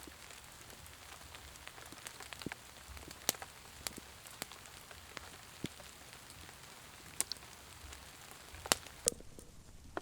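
Steady rain falling, with scattered sharp drop hits close by. Near the end the hiss of the rain drops out abruptly.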